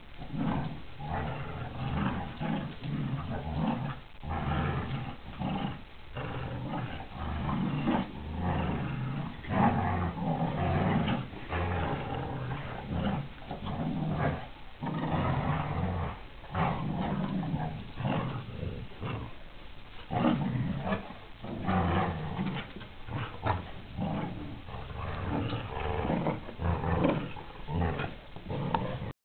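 Dogs growling in play while tugging a ball between them: play growls during a tug of war, not a fight. The growling comes in runs of a second or two with short breaks.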